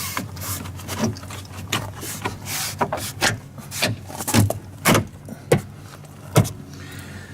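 A plastic interior trim piece being handled and pushed back into place by hand: rustling and scraping with a run of clicks and knocks, and several sharp snaps in the second half. A low steady hum runs underneath.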